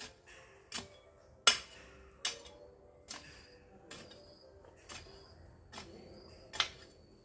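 Hoe blade chopping into the soil, a sharp strike a little more often than once a second, about eight in all, the loudest about one and a half seconds in.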